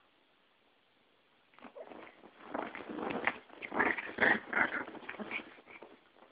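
A Yorkie and a Pomeranian play-fighting: a rapid flurry of small-dog growls and snarls that starts about a second and a half in, is loudest in the middle and dies down near the end.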